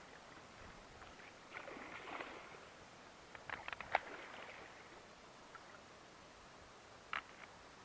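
Hooked wels catfish thrashing at the water surface: a rush of splashing about two seconds in, then a quick cluster of sharp splashes near four seconds, the loudest moment.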